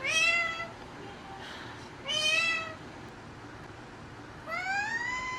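A pet bird mimicking a cat's meow: three meows about two seconds apart, the last one longer and rising in pitch.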